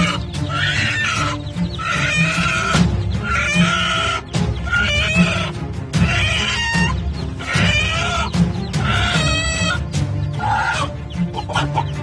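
A mother hen squawking in a string of short calls, about one a second, as she attacks a cornered eagle. Background music with a steady beat runs underneath.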